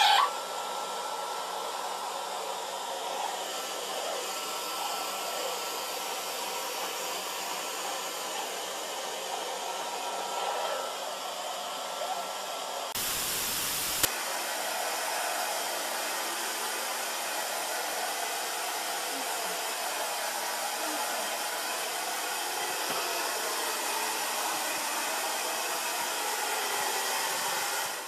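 Hand-held hair dryer blowing steadily, with a faint steady whine. About halfway through, a second of static hiss cuts in, and after it a steady blowing noise carries on without the whine.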